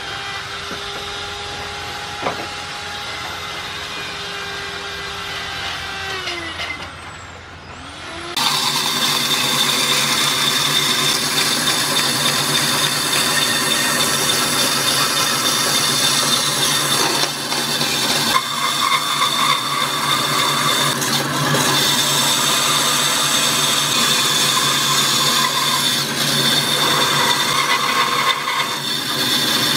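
A machine motor hums steadily and then winds down, its pitch falling; about eight seconds in it gives way suddenly to a louder band saw cutting through a thick wooden block, a steady high whine that dips briefly as the blade works around the curves.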